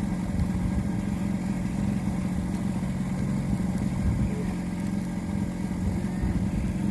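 Fishing boat's engine running steadily at an even speed, a constant low drone.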